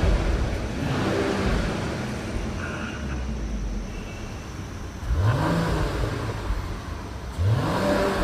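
Turbocharged 3-litre inline-six car engine revving twice, each rev rising and falling, about five and seven and a half seconds in, over a lower rumble before that.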